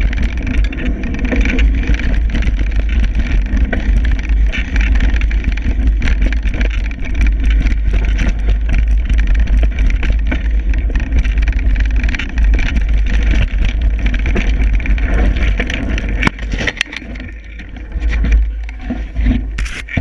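Downhill mountain bike running down a dirt and gravel trail: tyres rattling over the loose surface with constant clicks and knocks of the bike chattering, under a heavy wind rumble on the microphone. It eases off briefly near the end as the bike slows.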